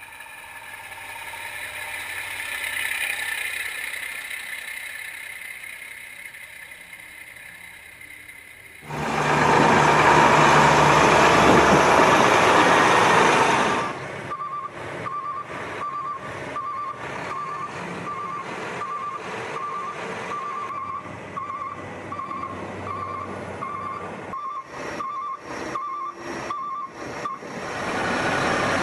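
Heavy truck sounds in abrupt, edited segments. A vehicle's noise swells and fades, then a loud steady noise runs for several seconds. After that a truck's reversing alarm beeps over and over at one pitch for more than ten seconds, broken by short cuts.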